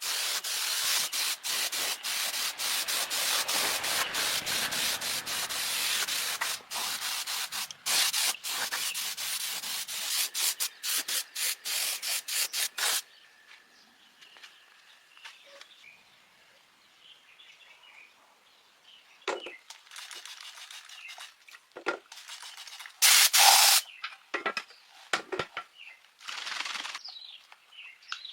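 Compressed-air spray gun hissing in rapid on-off bursts for about thirteen seconds, then a few short separate bursts later on.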